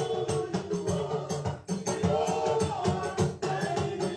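Music with a steady beat of rattling shaker-type percussion and drums, with a voice singing a melodic line.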